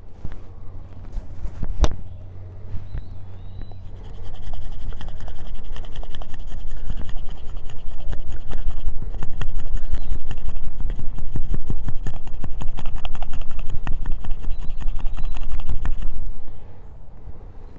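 Knife blade shaving thin curls off a wooden stick in quick repeated scraping strokes, carving a feather stick. The scraping starts about four seconds in and stops suddenly near the end.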